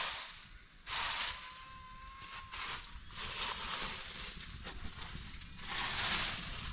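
Dry leaves rustling and crunching in several bursts as they are handled.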